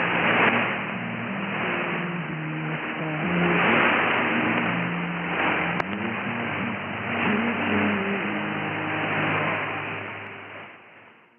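Shortwave AM broadcast from Radio Verdes Florestas on 4865 kHz, heard through heavy static hiss that swells and ebbs, with music notes faintly audible beneath; the audio is muffled, with no treble. About ten seconds in it fades away.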